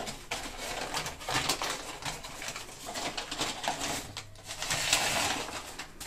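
Paper wrapping crinkling and rustling as it is pulled apart by hand, in irregular crackles.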